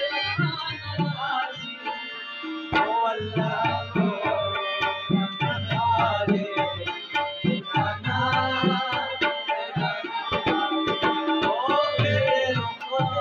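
Live Pashto ghazal: tabla drumming a steady rhythm under harmonium and rabab, with male voices singing the melody.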